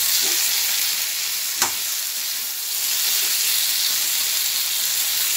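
Ridge gourd and potato pieces sizzling in hot mustard oil in a karahi while being stirred with a metal spatula. A single sharp clink of the spatula against the pan comes about a second and a half in.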